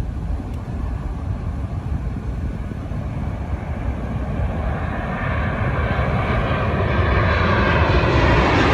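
Jet airliner's engines approaching on a landing approach: a low rumble that grows steadily louder, with an engine whine building up over the last few seconds.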